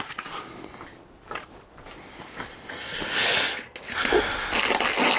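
A few small handling clicks, then sandpaper rubbed by hand: a short scraping stroke about three seconds in and a steady sanding from about four seconds in. The sanding takes material off a hinge part that is slightly too big to fit.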